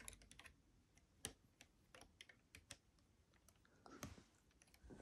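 Faint, scattered clicks and taps of Lego plastic pieces being handled as a minifigure is fitted into the TIE Fighter's cockpit, with a short plastic rustle about four seconds in.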